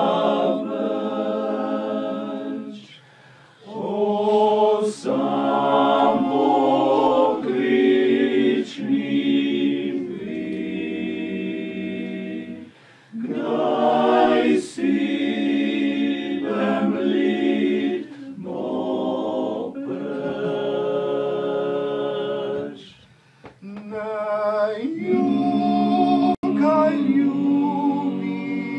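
Small male vocal group singing a cappella in harmony: long sustained phrases broken by three short breath pauses.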